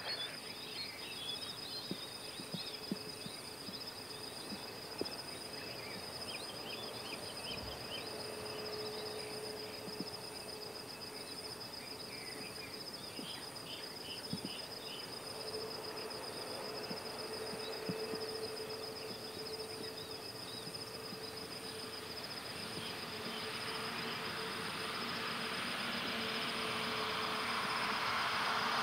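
Airbus A321neo jet engines at taxi power, faint and distant at first and growing steadily louder over the last several seconds as the aircraft taxis toward the listener. Underneath it runs a steady high insect drone, with scattered bird chirps.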